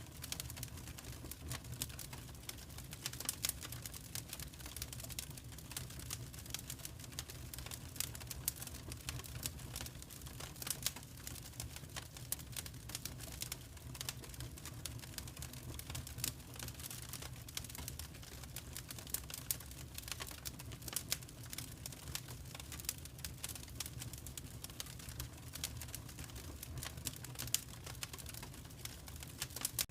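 Fireplace fire crackling, with many small irregular pops and snaps over a steady low rumble.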